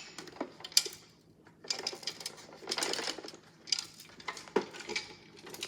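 Plastic casing of a toy washing machine clicking and clattering as it is pried apart and handled, with small loose pieces rattling inside, in several short bursts.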